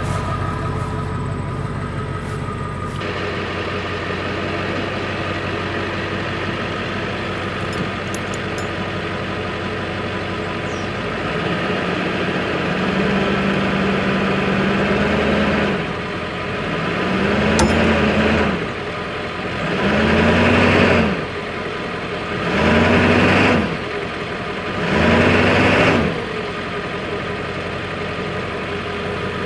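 A 1999 Ford F350 dually pickup's engine idling, then held at higher revs and revved in four surges, each rising and falling in pitch, as the truck strains against a chain tied to a bush.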